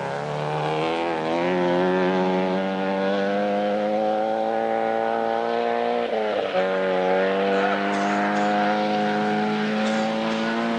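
Rally car engine running hard at high revs, its pitch climbing steadily as it accelerates. About six seconds in it breaks briefly for a gear change, then climbs again.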